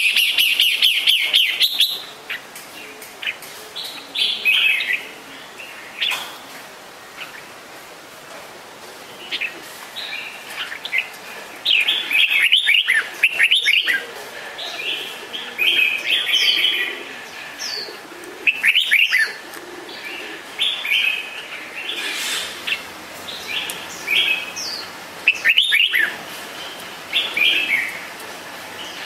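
Red-whiskered bulbuls calling: short, bright chirping phrases in bursts every second or few seconds, starting with a loud rapid run of notes.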